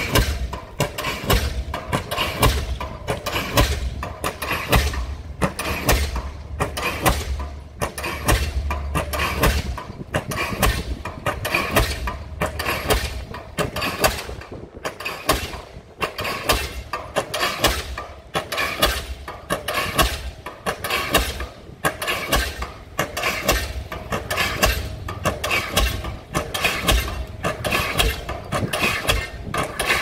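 A diesel pile hammer on a guided-rod leader firing and driving a concrete pile, a steady even rhythm of sharp heavy blows, over the low drone of the crawler rig's engine.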